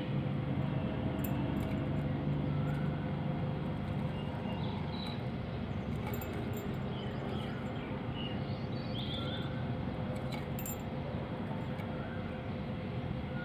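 Steady low background rumble and hum with occasional faint, short bird chirps and a few light clicks.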